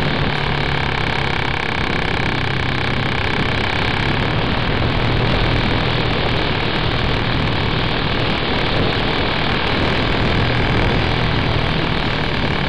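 Motor and propeller of a radio-controlled SF 33 motor glider model running steadily in flight, heard from an onboard camera with wind rushing past it, and a steady whine over the drone.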